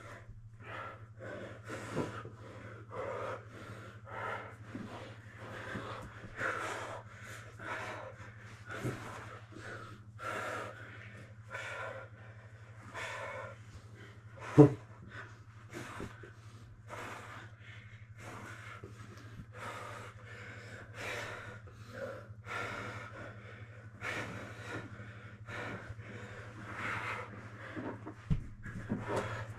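Heavy breathing of grapplers straining against each other, a breath about every second, with one sharp thud about halfway through.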